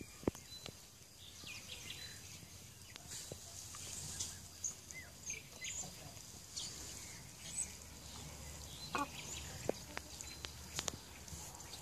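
Faint birds calling in a poultry yard: many short, high chirps scattered throughout, with a few sharp clicks and a low steady rumble underneath.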